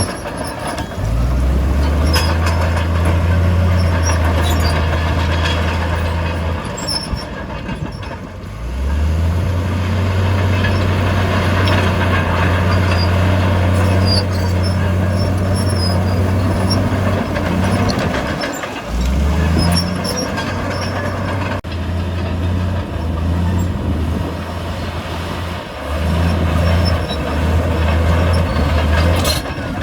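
Bulldozer's diesel engine working under changing load. The engine note sags briefly about eight seconds in and again about nineteen seconds in, then picks back up. Occasional metallic clanks sound over it.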